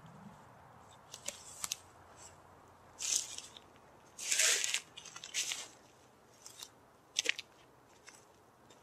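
Footsteps crunching and rustling through dry fallen leaves and brush, in irregular bursts, the longest about halfway through.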